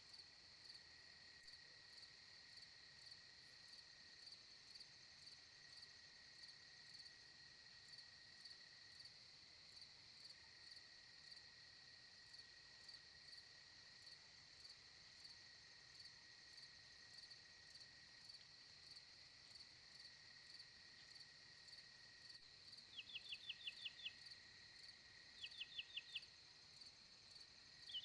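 Faint night chorus of crickets and other insects, a steady high trill that pulses about twice a second over a lower steady drone. Near the end, two short runs of quick rising chirps stand out as the loudest sounds.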